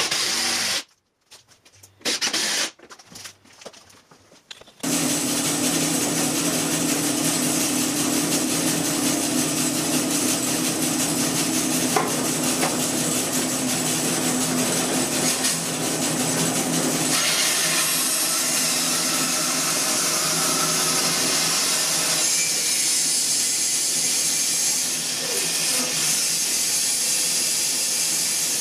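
A cordless drill runs briefly, then come a few short handling knocks. From about five seconds in, a Grizzly G0513X2 bandsaw runs steadily, sawing a debarked walnut log fed on a sled, and its sound changes about seventeen seconds in.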